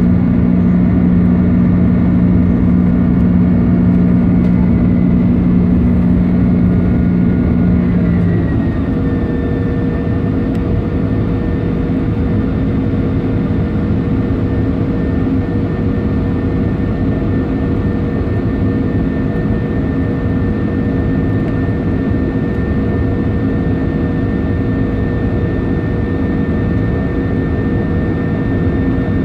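Jet airliner's engines and airflow heard from inside the passenger cabin during the climb: a steady roar with humming engine tones. About eight seconds in, the tones glide down in pitch and the sound becomes a little quieter.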